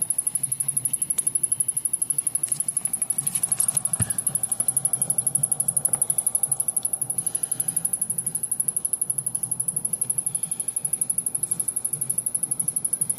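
Samsung rear projection television's power circuitry giving off a rapid, high-pitched ticking, several ticks a second without a break: the sign of a short that the owner suspects, with the main power board not firing up fully.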